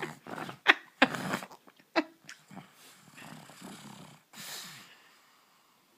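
Pug snoring: a few sharp, loud snorts in the first two seconds, then softer snoring breaths and a wheezy exhale that die away near the end.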